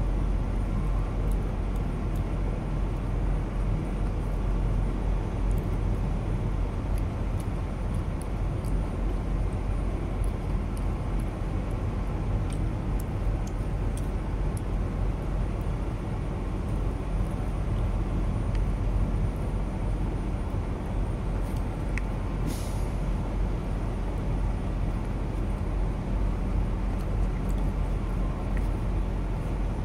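Steady low drone of a diesel truck engine running, with a short hiss of air about two-thirds of the way through.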